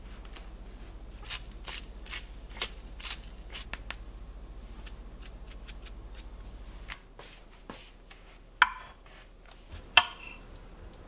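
A run of light, sharp clicks over a few seconds as pepper is put onto a fried egg on toast. Then, near the end, a knife slices green grapes on an end-grain wooden cutting board, with two loud knocks of the blade meeting the board.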